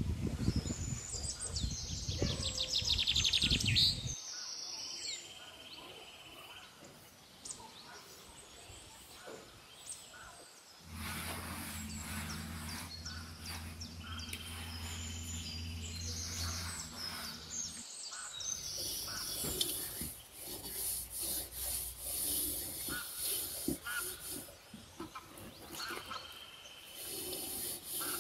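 Birds chirping, with a loud low rumble over the first few seconds and a steady low hum for several seconds midway. Near the end come soft rubbing and scraping as a hand smears wet clay over a mud stove and the underside of an aluminium pot.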